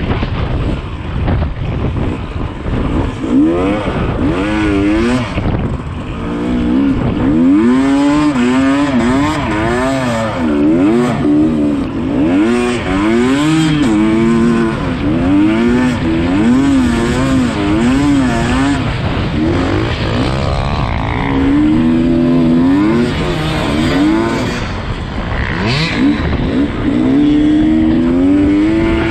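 Yamaha YZ250 two-stroke single-cylinder dirt bike engine revving hard, its pitch climbing and falling back again and again as it is ridden through an off-road enduro test, over a steady rough noise.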